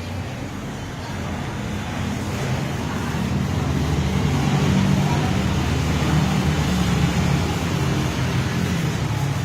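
Motor vehicle engine running steadily, swelling louder over the first few seconds and then holding.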